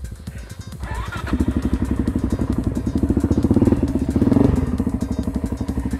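Single-cylinder four-stroke dirt bike engine on the move, quiet for the first second, then pulling harder and louder as the rider accelerates, loudest a little past the middle, then running on steadily.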